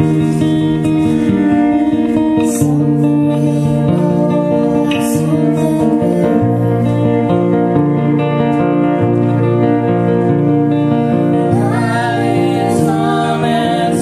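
Live folk song with plucked guitar over long held low notes that change every second or two. A voice comes in singing with vibrato near the end.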